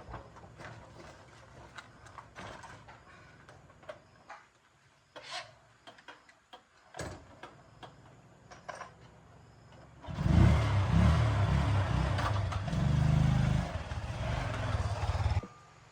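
Scattered light metal clicks and knocks of work on a motorbike, then a small motorbike engine runs and revs for about five seconds before cutting off abruptly.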